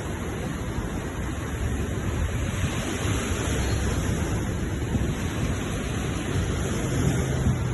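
Ocean waves surging against the shore: a steady rushing wash with a deep low rumble underneath.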